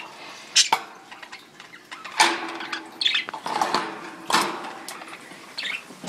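Budgerigars chirping in short, scratchy calls, about six of them scattered through the few seconds, with a couple of sharp clicks under a second in.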